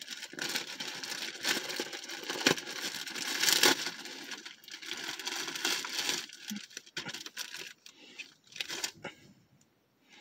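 A mail package being torn open by hand: tearing and crinkling of the wrapping, with a few sharp cracks, dying away near the end.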